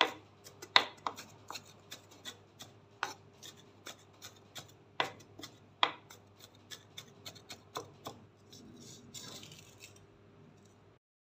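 Kitchen knife mincing sliced leek on a wooden cutting board: irregular taps of the blade on the board, a few of them louder knocks. Near the end there is a short scrape as the blade is drawn across the board to gather the pieces.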